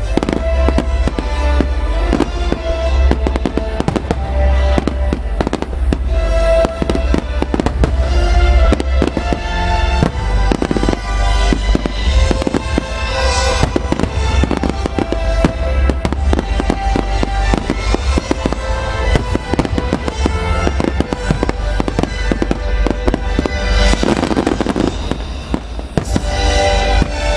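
Japanese aerial firework shells from a Saiki Enka Honten display bursting in rapid succession, a dense run of sharp bangs and crackles over ground-launched fireworks, with music playing.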